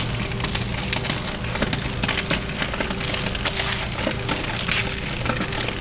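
Rotary die-cutting and slitting machine for labels running at full speed: a dense, steady mechanical clatter of rollers and cutting die, with a high steady whine that comes in as it starts.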